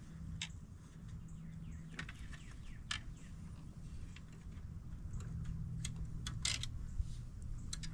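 Irregular clicks and ticks from a fishing rod and reel being handled and cranked, over a low steady hum, with faint bird chirps.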